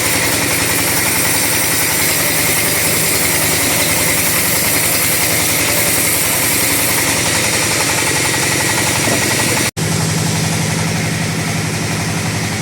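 Two-stroke chainsaw running loud and steady, sawing teak wood. It cuts out for an instant about ten seconds in, then goes on a little quieter with a steadier low hum.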